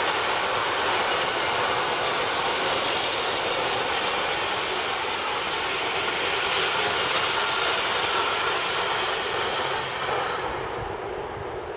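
Long freight train of container wagons carrying tank containers rolling past on the rails, a steady rush of wheel noise. The last wagons go by about ten seconds in and the sound fades away.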